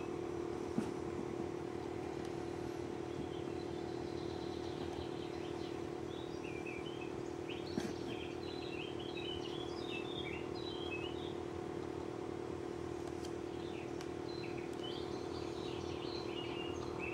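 A steady mechanical hum with birds chirping in short bursts, mostly mid-way and near the end, and two sharp clicks, one about a second in and one near the middle.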